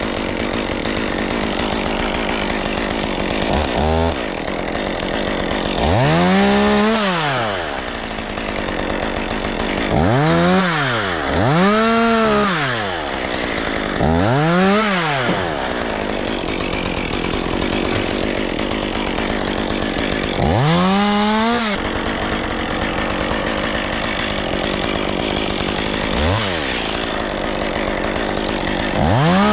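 Two-stroke chainsaw revved repeatedly, its pitch climbing and falling back each time, about seven times, over a steady, continuous machine noise.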